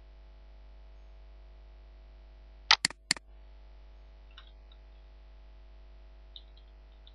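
Three sharp clicks close together about three seconds in, from working a computer's mouse or keys, over a faint steady hum. A few faint ticks follow later.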